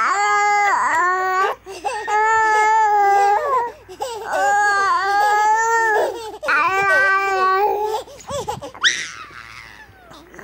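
A baby's long, high-pitched squeals: four drawn-out wavering notes, each a second or two long, then a short rising squeak near the end.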